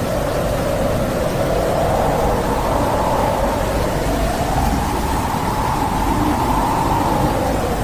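Winter wind blowing steadily, with a low hollow howl that slowly rises in pitch about halfway through and falls back near the end.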